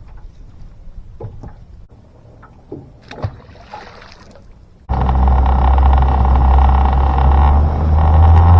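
A few faint knocks and clicks, then about five seconds in a boat motor starts up loud and runs steadily with a deep hum.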